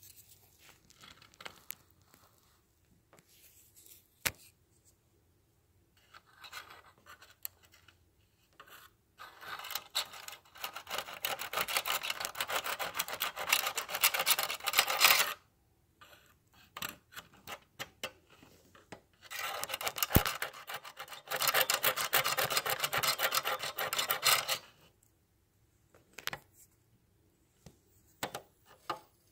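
Finger-file emery board rubbing back and forth on the switch contacts of a 1970s Hot Wheels Tune-Up Tower, sanding them clean for a better battery connection: two spells of rapid rasping, about six and five seconds long, with scattered light taps and clicks between them.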